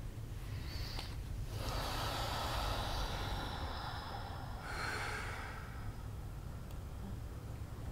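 Two breathy hisses from a person breathing out close to the microphone: a long one of about two seconds, then a shorter one about five seconds in, over a steady low hum.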